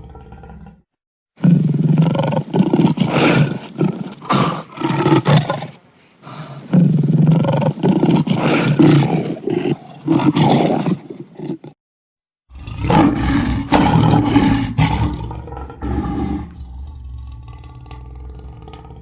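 Lions roaring: three separate roaring bouts, joined with abrupt cuts to silence between them, strongest in the low register. The last bout fades to a quieter, steady growl near the end.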